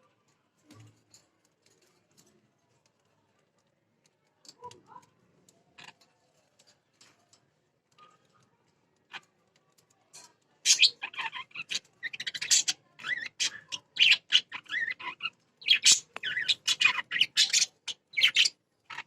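Pet budgerigars chattering: faint scattered ticks at first, then from about halfway through a loud, rapid run of high chirps and squawks in bursts of a second or two.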